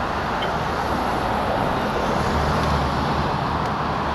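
Steady road traffic noise, with the low hum of a nearby motor vehicle's engine coming in about halfway through.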